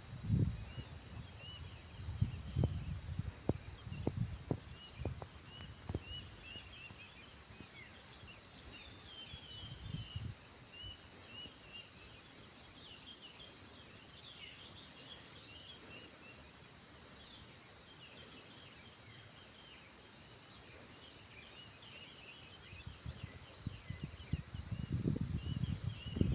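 Insects calling without pause around a rice field: one steady high trill and a higher, pulsing shrill, with short chirps scattered over them. Low rumbles come and go in the first few seconds and again near the end.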